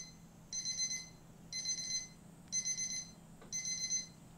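Electronic alarm beeping: short bursts of rapid high beeps, about one burst a second, each about half a second long.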